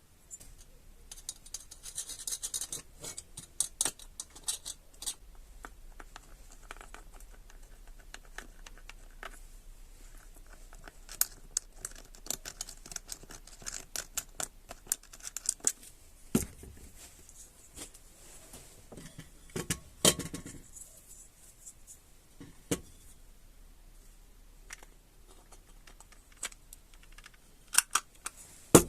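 Hands working on a chainsaw's recoil starter parts: irregular clicks, scrapes and light clinks of small plastic and metal pieces, with a few louder knocks in the second half.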